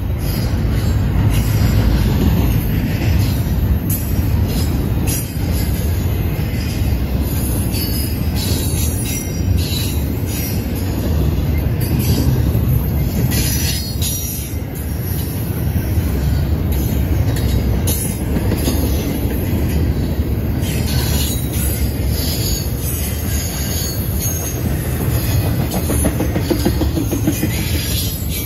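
Double-stack intermodal freight train of container well cars rolling past: a loud, steady rumble of wheels on the rails, with short high-pitched wheel squeals several times.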